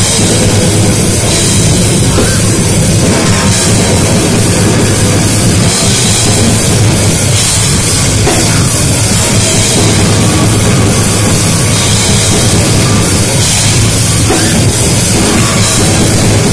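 Metal band playing live and loud: distorted electric guitars over a full drum kit with cymbals, unbroken throughout.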